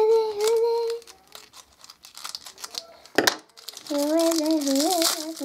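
A child singing long wordless notes twice, first at the start and again in the second half, with plastic doll packaging crinkling and one sharp crackle near the middle.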